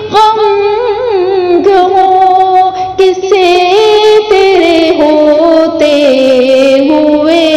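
A woman's solo voice singing an Urdu naat in long held notes with ornamented turns between them.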